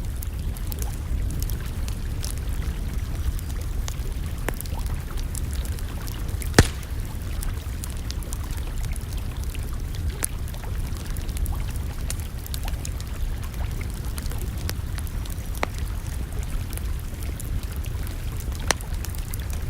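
Campfire crackling, with scattered sharp pops, the loudest about six and a half seconds in, over a steady low rumble.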